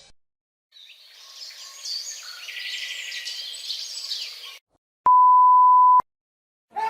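Songbirds chirping and singing for about four seconds, then a short silence and a single steady censor bleep, a pure high tone held for about a second.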